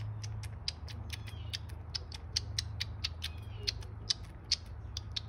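Baby grey squirrel suckling formula from a feeding syringe: quick, even clicking of its mouth, about four or five clicks a second, over a low steady hum.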